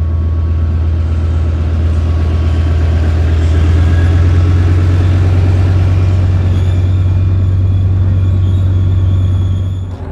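Tank's engine running steadily under way, a loud, deep, continuous drone with rumble, heard up close from on top of the moving tank. The sound cuts off abruptly right at the end.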